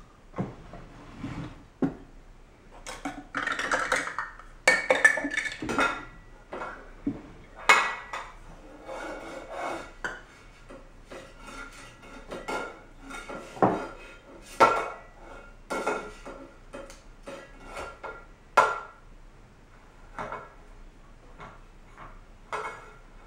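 Metal pot lid being banged and knocked about on the floor by a baby: irregular clattering knocks, many with a short metallic ring.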